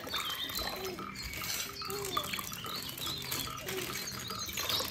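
Water sloshing and splashing in a plastic basin as hands squeeze and pull at a wet plastic bag in it.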